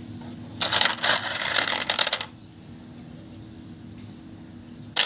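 A handful of steel Allen-key bolts (socket-head cap screws) clattering against each other and a plastic box as they are scooped up, for about a second and a half. A single small tick follows, and another brief rattle of metal parts starts near the end.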